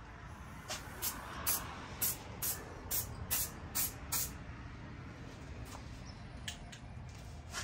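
Aerosol spray can of textured truck bed coating being sprayed in short hissing bursts, about two a second, misting the coating on lightly; a few fainter spurts follow near the end.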